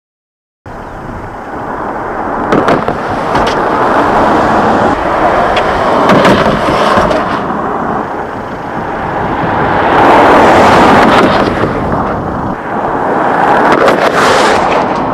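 Mercedes S-Class driving at about 70 km/h and running up a 45 cm wooden ramp near the end, under a loud rushing noise with a few scattered knocks.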